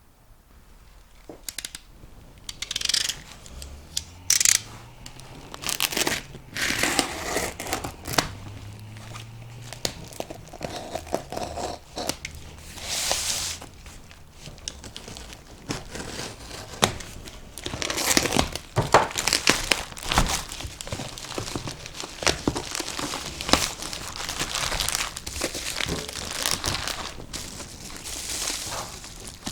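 Cardboard shipping box being opened by hand: packing tape tearing and packing material crumpling and rustling in irregular bursts.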